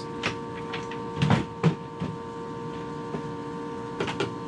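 Wooden cabin-sole floor boards lifted off the engine compartment, knocking and clattering several times, loudest about a second in and again near the end, over a steady hum.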